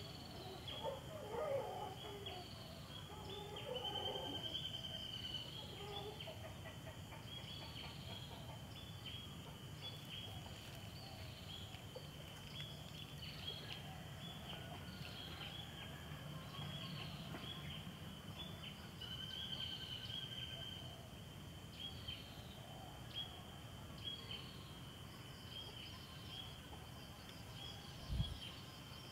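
Outdoor ambience of birds and insects: a steady high-pitched trill with short chirps repeating about once a second. Lower fowl calls come in the first few seconds.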